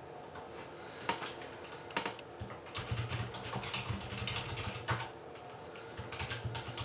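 Typing on a computer keyboard: a few separate keystrokes, then a quick run of keys for a couple of seconds, a short pause, and more keystrokes near the end.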